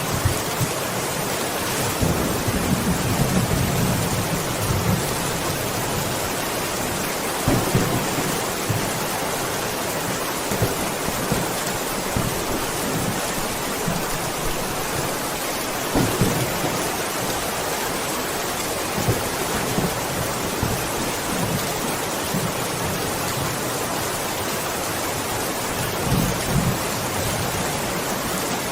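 Steady rain hissing, with low rolls of thunder rumbling up a few times.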